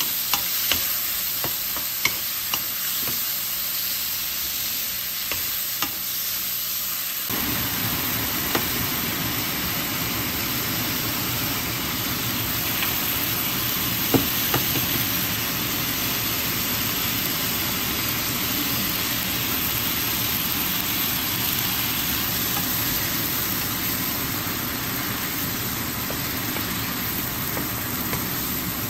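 Chopped tomatoes sizzling in a nonstick wok as a wooden spatula stirs, tapping and scraping the pan. About seven seconds in, a louder, steady rushing noise joins and stays, with one sharp knock about halfway through.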